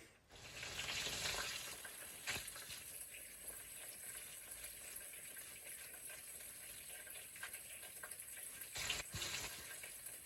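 Okra frying in oil in a cast iron skillet: a steady sizzle, loudest in the first second or so, with a few short pops.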